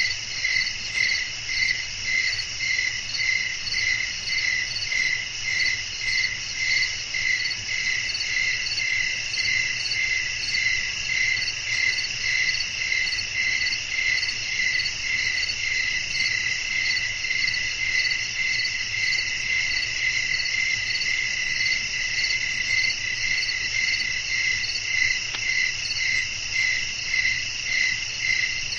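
Crickets chirping in a steady night chorus: an even, rapid chirp repeating a few times a second over a continuous high trill.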